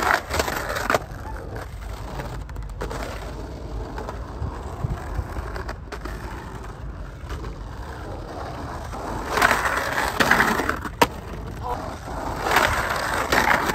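Skateboard trucks grinding along a metal-edged curb, with sharp clacks near the start, then skateboard wheels rolling over asphalt with a steady rumble.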